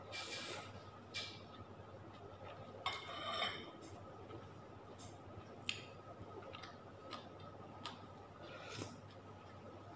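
Metal spoon and fork clinking and scraping against a bowl while eating soup and rice: scattered light clinks, with a longer scrape about three seconds in. A faint steady hum runs underneath.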